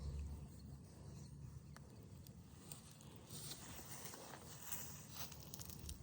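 Faint footsteps and rustling, with scattered soft clicks.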